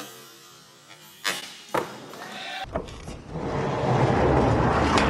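Skateboard sounds: two sharp clacks of the board about a second in, then from about three seconds in the loud, rumbling roll of skateboard wheels on a hard surface, with more board clacks near the end.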